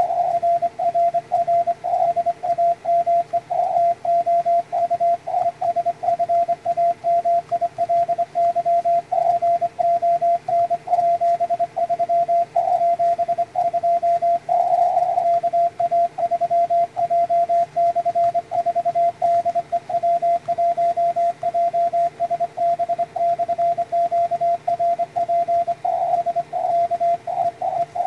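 Morse code (CW) from a home-built SW20 20-metre transceiver: a single steady tone keyed on and off in dits and dahs, with short gaps between characters.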